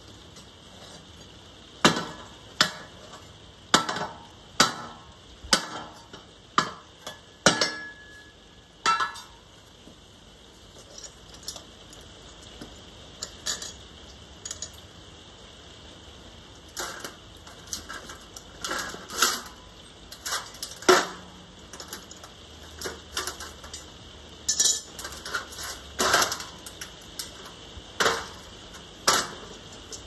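A metal ingot mould knocked about once a second with a wooden piece to free a freshly cast ingot, each knock sharp with a short ring. Lighter, irregular metallic clinks follow as water-pump pliers work at a steel casting flask, with a few louder knocks near the end.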